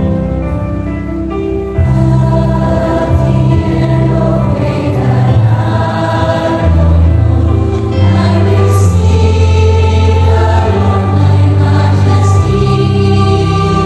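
Mixed choir of men and women singing a Christian song in parts, holding long sustained notes; the singing swells louder about two seconds in.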